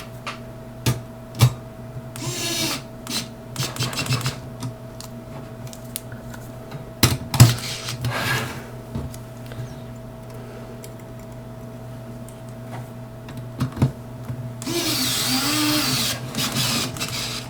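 Small clicks, taps and short scraping sounds of wires being fastened into a power supply's screw terminals with a screwdriver, with a longer rasping burst near the end, over a faint steady hum.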